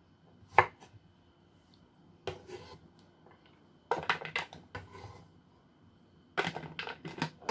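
Kitchen knife trimming okra on a wooden cutting board: one sharp knock of the blade on the board about half a second in, then three clusters of quicker, softer knocks and scrapes.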